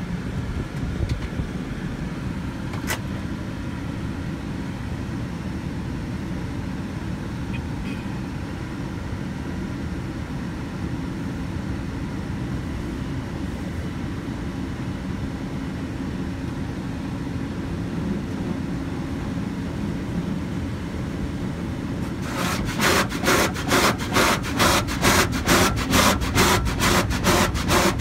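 Automatic car wash heard from inside the vehicle's cabin: a steady low rumble, then about 22 seconds in the wash's brushes or cloth strips start swishing and slapping against the body in a fast, even rhythm of several strokes a second, louder than before.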